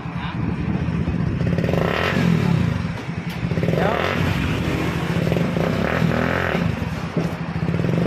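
Bajaj Pulsar NS160 FI single-cylinder engine running at idle, with the throttle blipped about every two seconds so the engine note swells and falls back.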